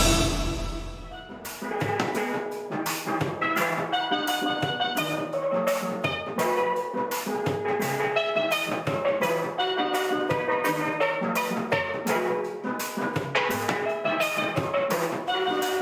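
Background music in a Caribbean style: steel pan playing a quick melody of struck notes over drums and percussion.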